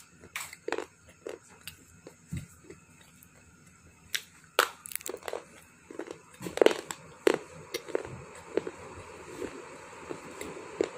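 Slate stone being bitten and chewed: irregular sharp crunches, sparse at first and coming more often from about four seconds in.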